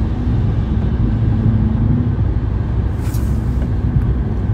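Steady low road and engine rumble inside a moving car's cabin, with a faint hum coming and going and a brief hiss about three seconds in.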